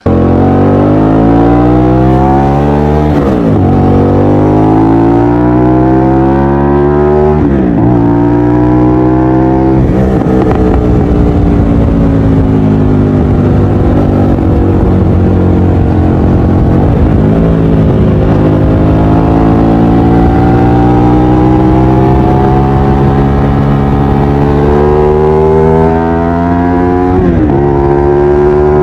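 Hyosung GT-250R's 250 cc V-twin engine running loud through an Akrapovic exhaust. Its note climbs steadily and drops sharply several times, as at each gear change while pulling through the gears.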